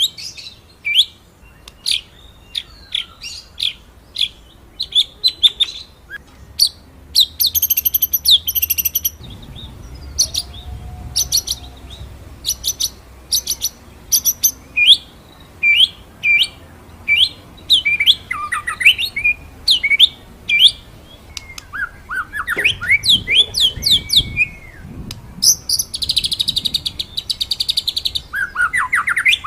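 White-rumped shama (murai batu) singing a rapid song: a string of sharp, clear whistled notes (the 'shots') broken by fast rolling trills about a quarter of the way in and again near the end.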